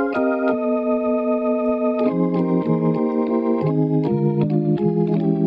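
Organ preset of the Pure Synth Platinum software synth playing sustained chords. One chord is held for about two seconds, then it moves through several quick chord changes.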